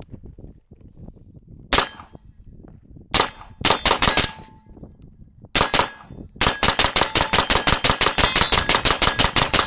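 Suppressed AR-15 chambered in 7.62x39 firing semi-automatic: a single shot, a quick group of about four, another single shot, then a rapid string of about six shots a second. Steel targets ring briefly after hits.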